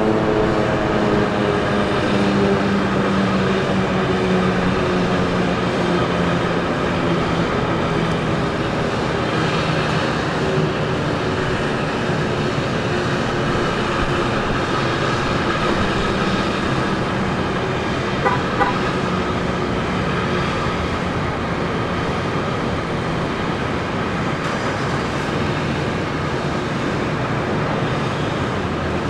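H.O.R. Super-Sirex 50 HP mechanical outdoor warning siren sounding its steady Alert tone from a distance, with echoes and road traffic noise under it. Its pitch slides down a little at first, then holds. A short double beep comes about eighteen seconds in.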